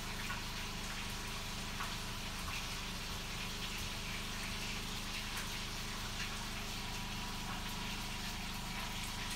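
Indoor spin bike's flywheel whirring steadily as it is pedalled, with a few light clicks.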